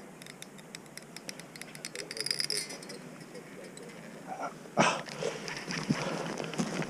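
Fishing reel clicking in short rapid runs as line is worked during the fight with a steelhead, followed near the end by a loud sudden thump and scattered knocks and rustling.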